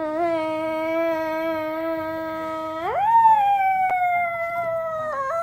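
A young child's voice making one long, unbroken vocal sound: held at a steady low pitch for about three seconds, then sliding sharply up and slowly falling again.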